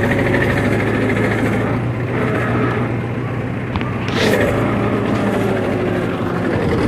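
Mahindra 475 DI tractor's four-cylinder diesel engine running steadily as it pulls a trailer at low speed over a rough, rutted mud track, with a short sharp noise about four seconds in.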